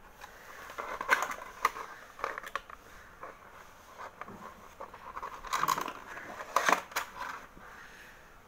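Clear plastic blister packaging being handled and pulled apart, crackling and crinkling with sharp clicks. The sound comes in two busier spells, about a second in and again around six seconds in.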